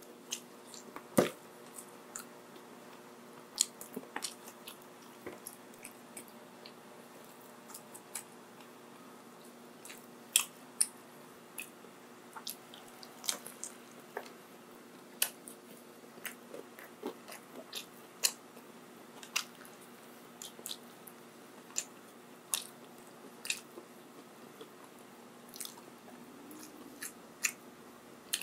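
Close-miked eating: a person chewing and biting fast food, with sharp, wet mouth clicks at irregular intervals over a faint steady hum.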